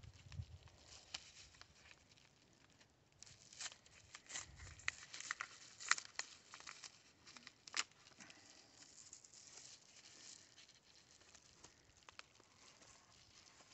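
Padded paper mailer being torn open by hand: irregular tearing and crinkling of paper with sharp crackles, busiest in the middle, and a couple of low bumps from handling.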